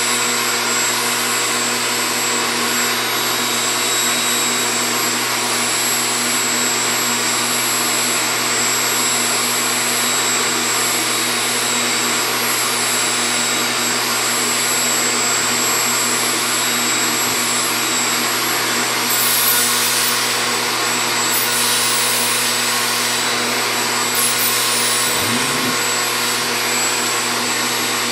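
Vacuum cleaner running steadily: a constant motor whine and airflow hiss with steady hum tones. About two-thirds of the way through, the high hiss swells briefly a few times.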